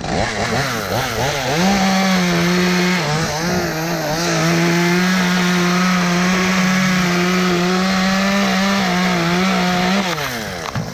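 Two-stroke chainsaw revving up and held at high speed cutting through wood, its pitch dipping briefly about three seconds in; it drops back toward idle near the end.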